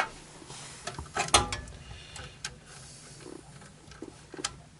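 Scattered clicks and knocks of tools and parts being handled while an oil burner's control wiring is taken apart, with one louder knock about a second in. A faint steady low hum runs underneath.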